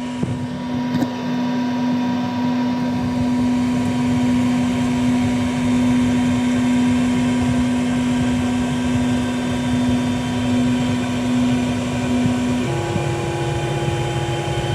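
Qidi X-Max 3D printer humming steadily just after finishing a test print: a droning tone over a fan-like hiss, which jumps to a higher pitch about 13 seconds in.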